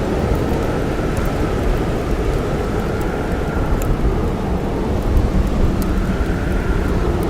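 Blizzard wind blowing steadily with a faint howling tone that slowly rises and falls, over sparse small crackles and pops of a wood campfire.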